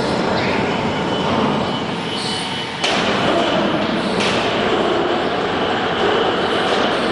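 CNC wood router running, its spindle cutting with a loud, dense, noisy sound and a faint steady high tone, which jumps louder abruptly about three seconds in and shifts again a second later.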